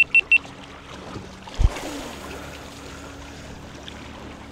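Three short, high electronic beeps in quick succession, then a dull thump about a second and a half in, followed by the steady low drone of a passing motorboat engine.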